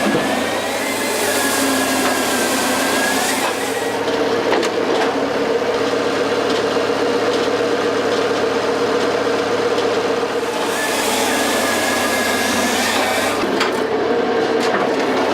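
KS45S hydraulic log splitter running: a steady machine drone with a higher whine that bends in pitch near the start and again about two-thirds of the way in, and a few faint clicks.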